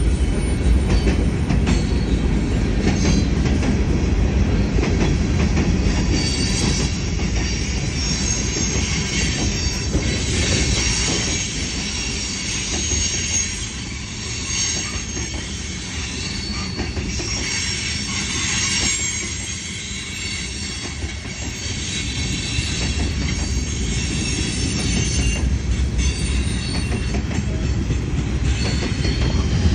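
A freight train of boxcars and tank cars rolling steadily past. It is a continuous low rumble of wheels on rail, with high-pitched wheel squeal coming and going, loudest about ten and eighteen seconds in.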